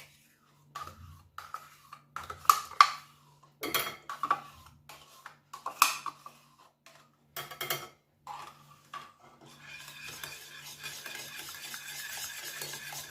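A utensil clinking and knocking against a mixing bowl in scattered sharp strokes as yogurt goes into the egg-and-sugar mixture, then steady continuous stirring of the batter from about ten seconds in.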